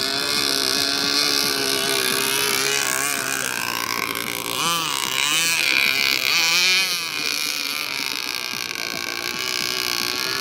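Zenoah 30cc two-stroke petrol engine of an RC boat running steadily, its pitch swinging up and down several times in the middle of the stretch.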